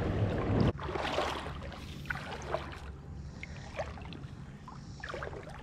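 River water sloshing and trickling around a wader's legs as he wades across a river, with a few small splashes. The sloshing is louder for the first moment, then drops suddenly to quieter running water.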